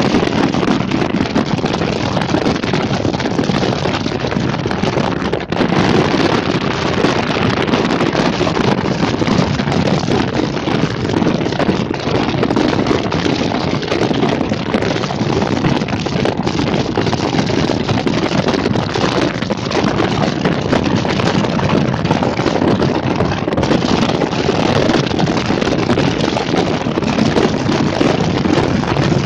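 Steady wind noise rushing over the microphone, mixed with the rumble of a moving vehicle.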